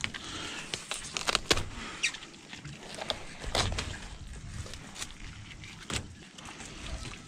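Filleting knife working a red emperor on a metal filleting table: irregular scrapes and clicks as the blade runs along the backbone and ribs, with taps of the knife and fish against the table.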